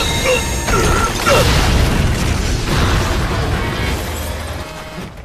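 Heavy impact and crash sound effect, the rumble and clatter of smashing rubble that fades away over several seconds.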